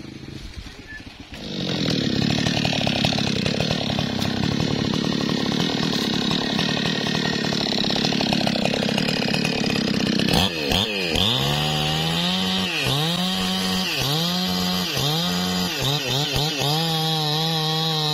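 Two-stroke chainsaw running at full throttle, cutting into a tree trunk; it starts loud about a second and a half in. From about ten seconds in, its high engine note dips in pitch and recovers about once a second as the cut loads it.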